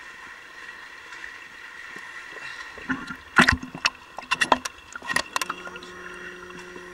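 Water splashing and sloshing around a camera held at the surface of a swimming pool, with a cluster of sharp splashes a few seconds in. A low steady hum comes in near the end.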